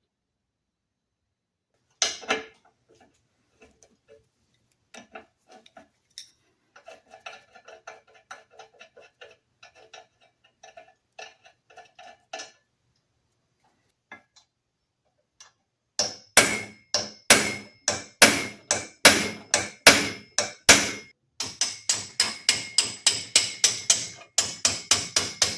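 Hammer blows on metal: light scattered taps and clicks, then from about two-thirds of the way in a fast run of loud, ringing strikes, speeding up to about three a second near the end, as a stuck part of an old lathe is knocked loose.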